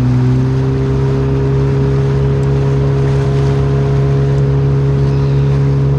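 Outboard motor on an inflatable boat running steadily under way, a loud even hum with a rushing noise beneath it.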